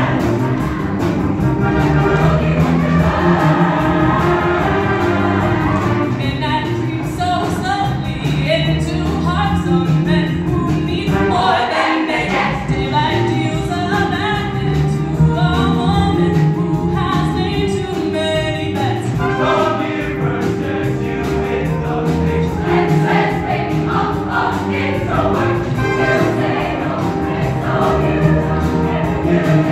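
Show choir singing an upbeat disco-funk song over instrumental backing, massed voices over a steady bass line.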